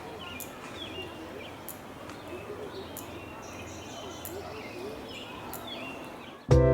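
Small birds chirping again and again over a faint murmur of distant voices. Music starts suddenly near the end.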